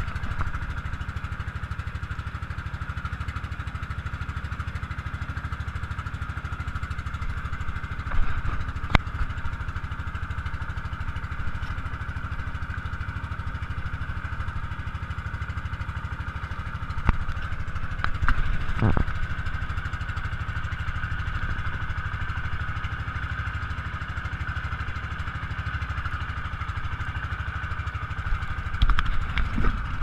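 Engine of a motorized bangka outrigger boat running steadily at cruising speed, with a few short knocks along the way.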